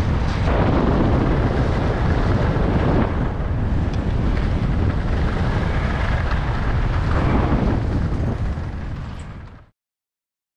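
Wind buffeting the camera microphone over the hiss of skis running on firm groomed snow during a descent. The noise fades about eight seconds in and cuts off abruptly a little later.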